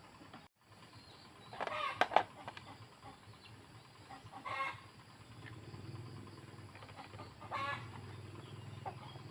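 Chickens clucking in a few short calls, the loudest about two seconds in. About halfway through a steady low hum starts and keeps going underneath.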